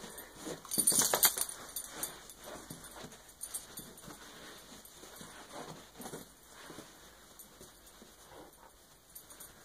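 A dog making play noises during rough play with a person's hands, with scuffling. The busiest and loudest moment comes about a second in, and the sounds thin out toward the end.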